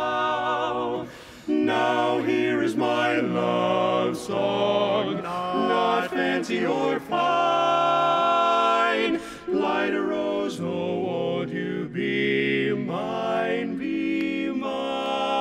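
A male barbershop quartet singing a cappella in four-part harmony, in short phrases with brief breaks and one long held chord around the middle.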